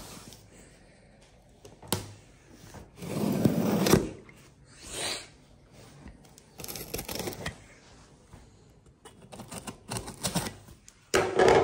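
Cardboard speaker box being cut open with a box cutter and handled: a scraping rush and a higher swish of the blade through tape, then scattered light clicks and taps of cardboard flaps and packing.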